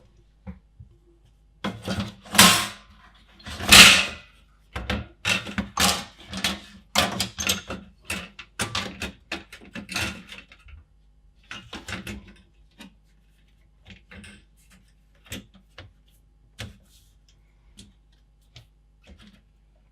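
Metal shielding plate being handled and fitted into a plastic computer case: a string of clatters and knocks, loudest a couple of seconds in, thinning to occasional small clicks over the second half.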